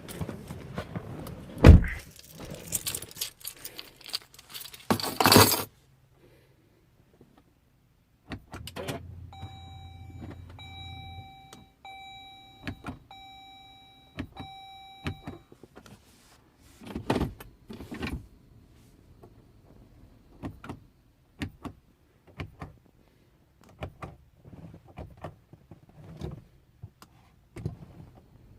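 Keys jangling in a Jeep that won't start, then the dashboard warning chime sounding about five times, one tone a second, followed by scattered clicks and knocks; the engine never catches.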